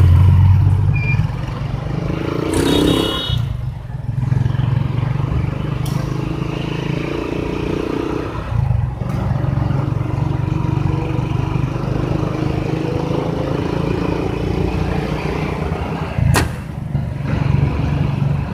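Vehicle engine running under steady road and traffic noise, heard from a moving vehicle, with a sharp click about sixteen seconds in.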